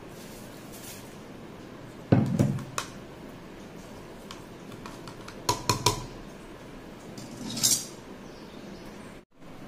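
A metal spoon clinking against the inside of a glass jar of red chilli pickle as it is stirred, in short clusters of clinks. A louder knock with clinks comes about two seconds in, and a brief scrape comes near the end.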